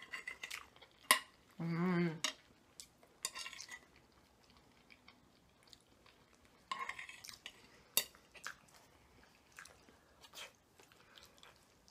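Close-miked eating: metal forks clicking and scraping on plates, with chewing of spaghetti in between. A short hummed "mmm" comes about two seconds in.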